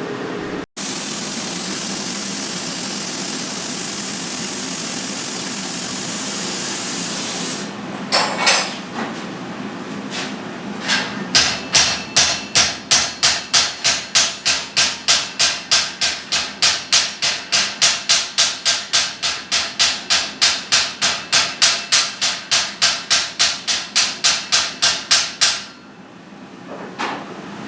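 Hand hammer striking steel rivets, about three blows a second for some fourteen seconds, each blow ringing metallically: new rivets being set in an old forged iron gate. Before the hammering a steady hiss runs for several seconds.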